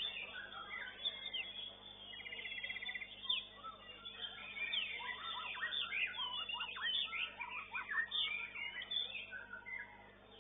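Caged songbirds singing at once: a dense, overlapping mix of whistles, chirps and quick rattling trills, with a buzzy rattle about two to three seconds in.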